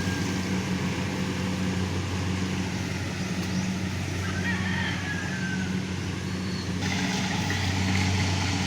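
Small engine running steadily, a constant low hum with no revving.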